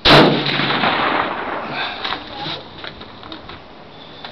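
A single rifle shot from an M1903A3 Springfield in .30-06, loud and sharp, its report echoing away over about a second and a half, followed by a few faint clicks.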